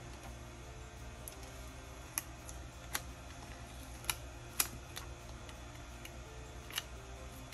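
Scattered light clicks and taps, about six in all, from stickers and planner pages being handled on a desk, over a faint low hum.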